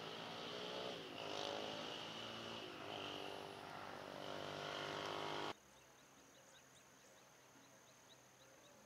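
A motor vehicle engine, gliding up and down in pitch as it revs, cuts off suddenly about five and a half seconds in. Faint insects follow: a steady high buzz with quick chirps repeating about three times a second.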